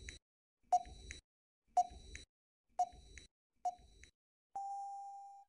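Quiz countdown timer sound effect: short beeping ticks about once a second, then one longer steady beep near the end that fades away.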